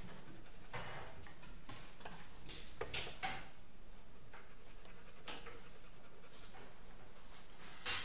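Coloured pencil scratching on drawing paper in short, irregular shading strokes, with a sharp click near the end.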